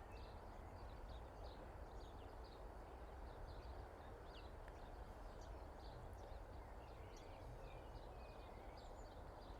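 Faint small birds chirping and twittering on and off, over a low, steady background rumble.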